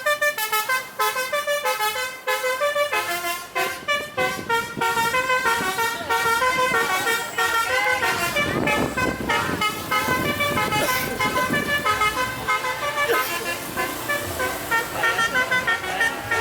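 A vehicle's basuri musical horn playing a tune, loud and bright, note after note in quick even steps. About halfway through, a rougher, noisier stretch sounds beneath it for a few seconds.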